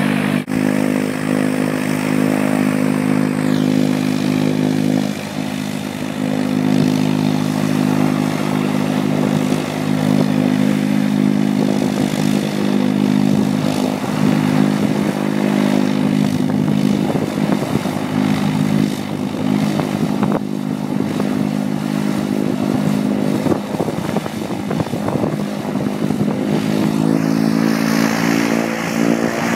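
Antonov An-2's nine-cylinder radial piston engine running steadily on the ground, with the propeller turning.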